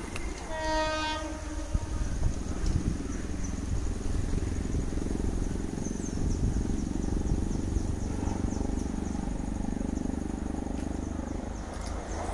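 Horn of an approaching WAP-7 electric locomotive, one blast of about a second near the start, followed by the train's steady low rumble as it draws nearer.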